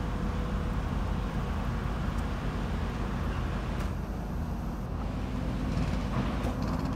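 Steady low engine rumble of heavy machinery running at a demolition site, with no sudden impacts.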